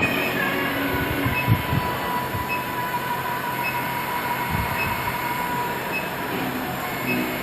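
Induction brazing machine running: a steady mechanical drone with a thin, steady high tone over it and faint regular ticks about once a second.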